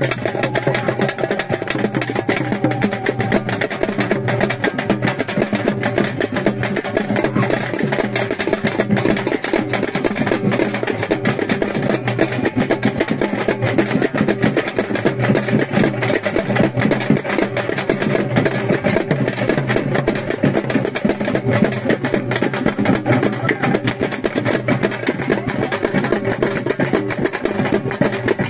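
Fast, continuous drumming for dancing: dense, rapid strokes that run on without a break.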